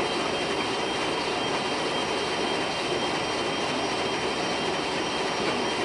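Steady rushing noise on the flight deck of an Airbus A340-300 with its four CFM56 jet engines running, heard from inside the cockpit, with a faint steady high tone and no distinct events.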